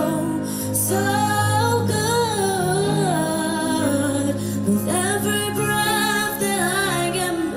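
A young woman singing solo into a microphone in long phrases with vibrato, over instrumental accompaniment holding sustained low notes.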